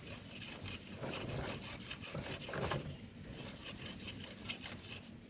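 Cotton cloth rubbing and scraping along a Royal Enfield motorcycle's dirty drive chain in irregular wiping strokes, with small clicks from the chain links, as the dust is wiped off.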